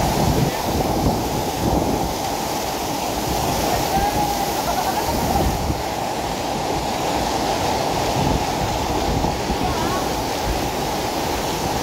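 Steady rush of water pouring over the concrete overflow weir of a full village tank and tumbling down over rocks.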